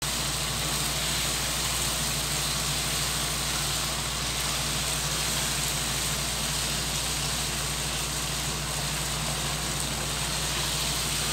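Chicken karahi masala with onions sizzling and frying in a pan, an even steady sizzle over a low constant hum.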